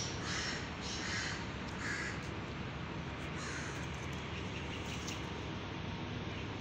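A crow cawing, four separate calls spaced about a second apart in the first few seconds, over a steady low background noise.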